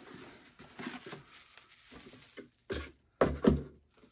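Handling of a bubble-wrapped package: faint rustling, then two louder bumps and crinkles about three seconds in.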